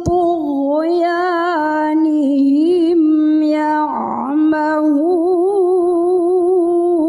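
A woman's voice in melodic Quran recitation (tilawah), holding long, wavering notes with ornamented turns on the words 'fi tughyanihim'. A short breathy consonant breaks the line about four seconds in.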